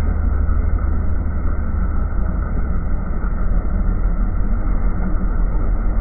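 Grimme potato harvester running as it lifts potatoes through wet soil: a steady, loud, low mechanical rumble.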